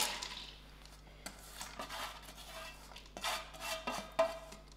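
A stainless steel bowl scrapes and clinks against the steel inner pot of an electric pressure cooker as washed dal is tipped and scraped out of it. Several short scrapes and knocks come through, a few leaving the metal ringing briefly.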